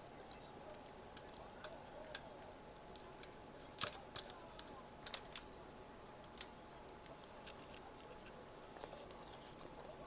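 Close-up chewing of crunchy fried snack food, with irregular crisp crackles as the batter breaks, loudest about four seconds in.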